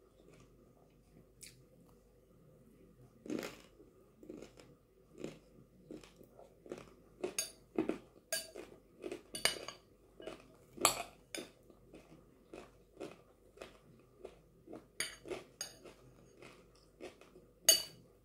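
Close-up chewing and crunching of chana chatpate, a crunchy mix of soaked chickpeas, dry Wai Wai noodles and nimki, with a metal spoon scraping and clinking against a glass bowl as it is stirred. The crunches and clinks come at irregular moments, and the sharpest clink falls near the end.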